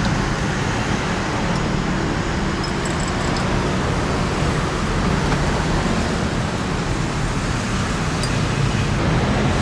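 Steady street traffic noise, an even rumble and hiss of passing vehicles.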